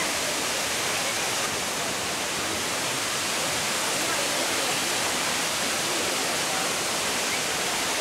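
Steady, even rush of the Kravice waterfalls, a tufa cascade on the Trebižat River pouring into its pool.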